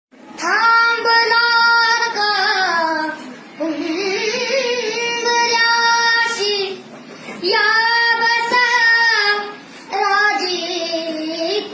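A child's voice singing unaccompanied: long held notes with wavering ornaments, in four phrases separated by short breaths.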